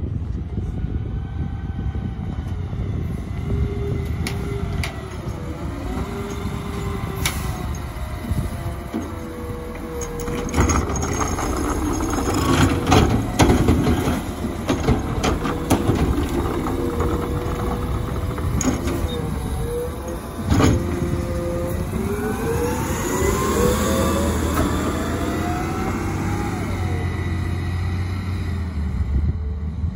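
McNeilus ZR automated side-loader garbage truck running at the curb while its arm empties a cart, with a string of knocks and bangs from about ten seconds in and one loud bang about twenty seconds in as the cart is set back down. Near the end the truck's engine rises in pitch as it pulls away.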